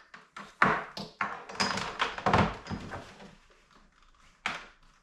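Knocks and taps of things being handled and set down while the small CNC router is being hooked up. The knocks come in a quick run over the first three seconds, then there is one more near the end.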